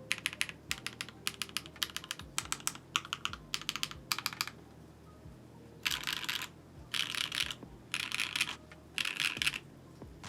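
Bauer Lite mechanical keyboard with HMX Violet linear switches and DCX keycaps being typed on: quick runs of keystrokes for about four seconds, a short pause, then four fast, dense bursts of keystrokes.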